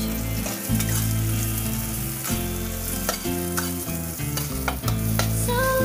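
Julienned carrots and garlic sizzling in oil in a stainless steel wok, stirred with a metal spatula that scrapes and clinks against the pan several times.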